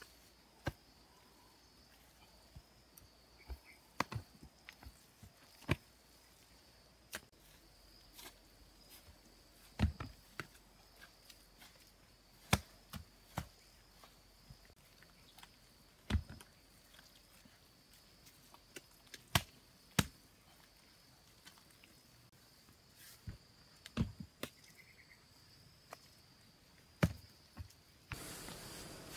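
Irregular sharp slaps, one every one to three seconds, of wet cement mortar being pressed and patted by hand onto the walls of a dug pit. A steady high insect drone runs underneath.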